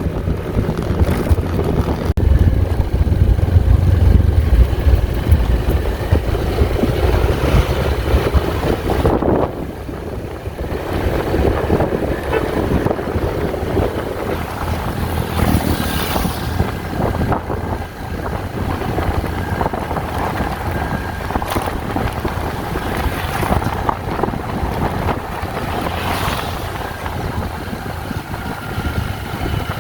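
Wind rushing over the microphone, with a motor running underneath, during travel in a moving vehicle.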